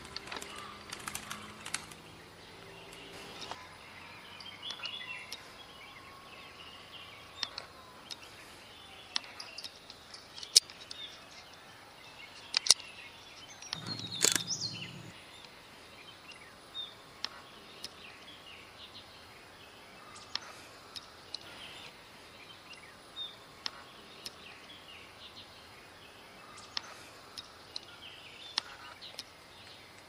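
Forest bird ambience: scattered short, high bird chirps and calls over a faint background hiss. There are a few sharp clicks, and a brief louder noisy burst about halfway through.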